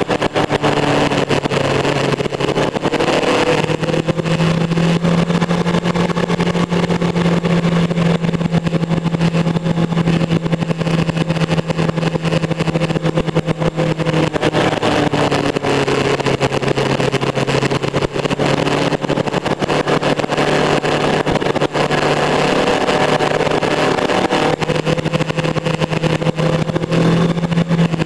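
Motorcycle engine running at road speed, heard from on board with a steady rush of wind; the engine note steps up and down a few times as the throttle changes.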